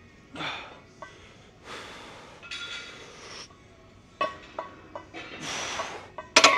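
Hard, breathy exhalations of a man straining through barbell bench-press reps, with a few faint metal clicks between them. In the last moment there is a cluster of sharp metal clanks as the loaded bar goes back onto the rack.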